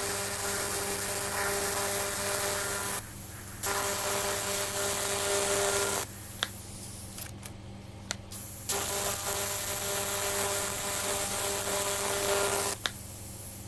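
AC TIG welding arc on thin aluminium beer cans, a buzzing hiss struck in three runs: two of about three seconds with a brief break between, then a longer one after a pause of about two and a half seconds. A few sharp clicks fall in the gaps, over a steady low hum.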